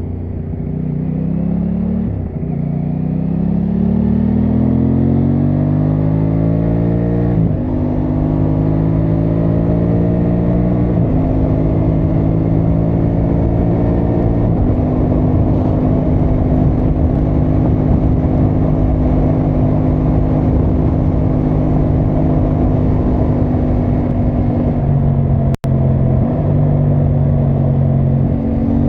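Aprilia Tuono 660 Factory's parallel-twin engine pulling hard through the gears: the note rises, drops with an upshift about two seconds in, rises again to a second upshift near eight seconds, then settles into a steady cruise. The sound cuts out for an instant a few seconds before the end.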